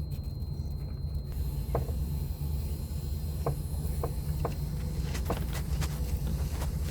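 Scattered light clicks and taps of hand-work on parts and tools over a steady low rumble, starting about two seconds in.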